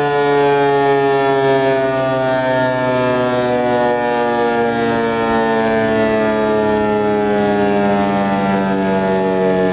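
ASC T-128 dual-tone outdoor warning siren sounding loud and steady, its pitch slowly falling as it winds down.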